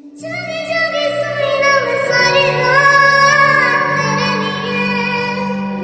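Phone ringtone music: a singing voice on long held notes that glide slowly in pitch, over a sustained low bass. It starts just after the opening silence.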